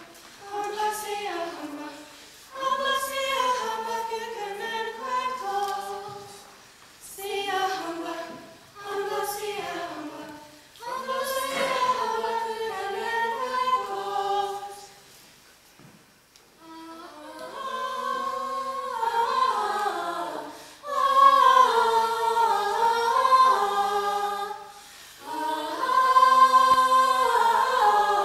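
A small group of mixed male and female voices singing unaccompanied in harmony, in phrases a few seconds long with short breaks between them, louder in the last third.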